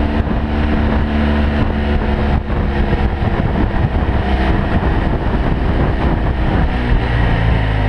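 BMW F 800 GS Adventure's parallel-twin engine running while the motorcycle is ridden, under a strong rush of wind noise. The engine note dips briefly about two seconds in and settles lower near the end.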